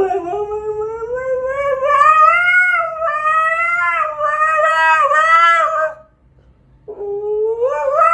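A dog howling on command, or "singing": one long wavering howl of about six seconds that rises slowly in pitch, then a brief break and a second howl starting near the end.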